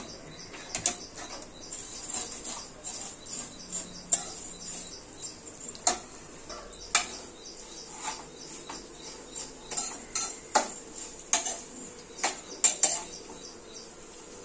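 A steel spoon knocking and scraping against a non-stick kadhai as dry vermicelli is stirred and roasted in ghee on a low flame. The knocks are irregular, about one or two a second.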